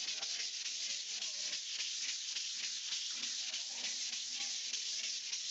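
Sheet of sandpaper, folded in three and held by hand, rubbed over a wall of dried wall putty: a steady, scratchy rasp of continuous sanding strokes.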